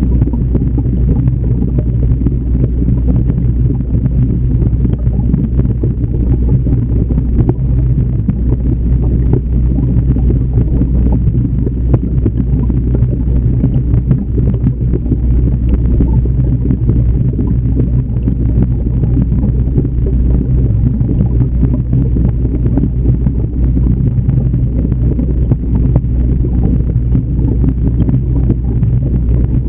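Steady low hum and rushing water noise picked up underwater inside an aquarium, unchanging throughout.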